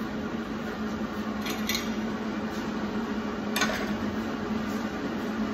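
Steady machine hum, like a running ventilation fan, with a few light clicks and one sharper click about three and a half seconds in.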